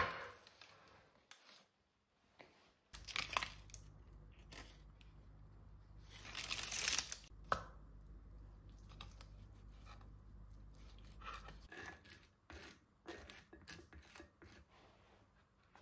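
Baking parchment crinkling and tearing as baked chicken is handled and cut with a knife on a wooden board, loudest in a crackly burst around the middle. Near the end, short scrapes of a knife spreading onto toasted bread.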